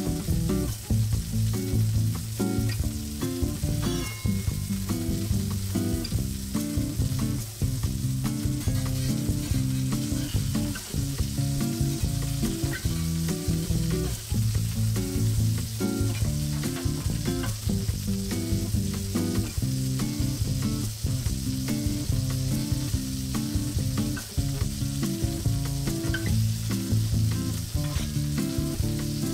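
Thick sirloin steak searing in olive oil in a Mauviel copper frying pan over medium heat: a steady sizzle and crackle of hot fat. Quiet background music plays underneath.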